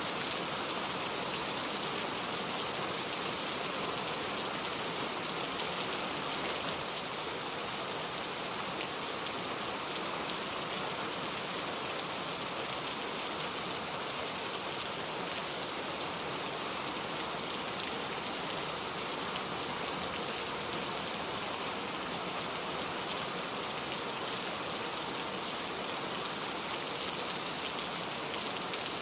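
Steady rain falling, a continuous even hiss of raindrops.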